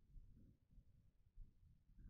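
Near silence: only a faint, uneven low rumble on the microphone.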